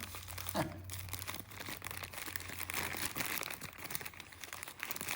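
Blind-box packaging crinkling and rustling steadily as it is unwrapped by hand, with small crackles throughout.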